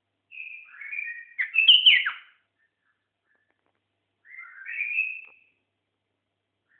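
White-eared bulbul singing two short, quick phrases of sliding, warbled notes: a longer one about half a second in and a shorter one around four seconds in.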